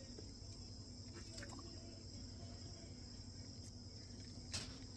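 Faint, steady high-pitched insect-like chirring with a low background hum, and one short sharp click about four and a half seconds in.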